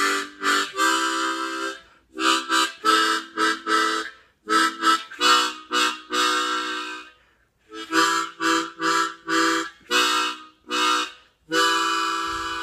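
Chord harmonica playing a gospel hymn in short, detached chords, grouped in phrases with brief pauses between them. Near the end it holds one long chord that slowly fades.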